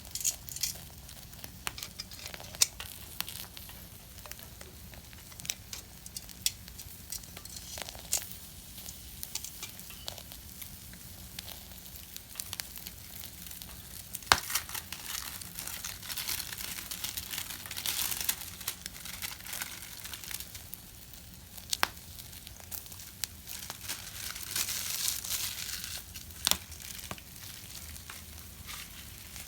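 Small wood fire sizzling and hissing, with many scattered sharp crackles and pops; the hiss swells twice, about halfway through and again a few seconds before the end.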